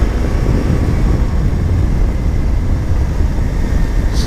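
Suzuki V-Strom 800DE's parallel-twin engine running at a steady pace under way, mixed with a steady low wind rumble on the microphone. A short high tick comes near the end.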